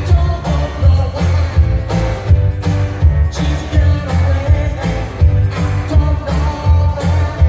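Loud pop music with a strong, regular bass beat and a singing voice.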